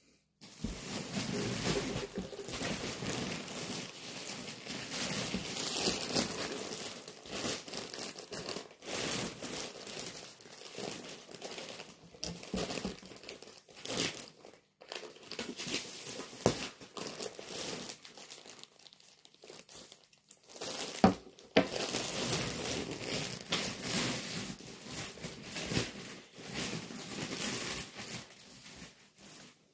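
Plastic mailer bag crinkling and rustling as it is handled and opened, with a few sharp clicks, the loudest about two-thirds of the way through.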